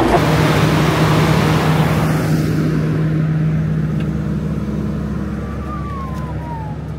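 Skid-steer engine running steadily with a low hum, while a broad rushing noise over it fades away during the first few seconds and the whole sound slowly gets quieter.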